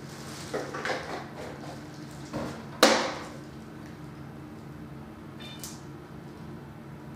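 Electrolux 365H LE washing machine running a wash, its motor humming steadily while the drum turns and the wet laundry and water slosh and splash inside. Several swishes come and go, the loudest just under three seconds in.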